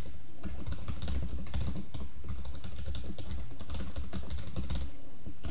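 Typing on a computer keyboard: a quick, uneven run of key clicks that stops near the end.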